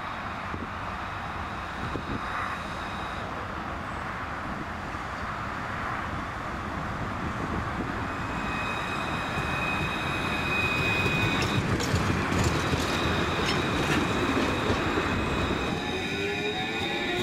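Alstom Citadis low-floor tram passing close by on a curve, its wheels and running gear rumbling louder as it nears. From about halfway in a steady high wheel squeal sounds, and near the end a rising whine comes in.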